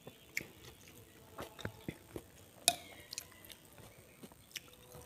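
A person eating chicken noodle soup (soto) with a metal spoon, picked up close by a lapel mic: soft chewing and mouth sounds with scattered small ticks, and one sharp clink of the spoon against the bowl with a brief ring about two and a half seconds in.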